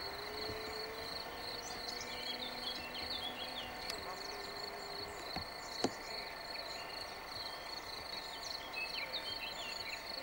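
Outdoor countryside ambience: insects chirring steadily and high, with small birds chirping now and then. A faint hum rises slightly during the first five seconds, and there is one sharp click about six seconds in.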